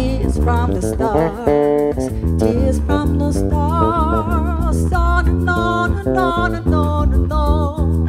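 Live band playing: a woman sings held notes with vibrato over electric bass guitar, guitar and drums with cymbals.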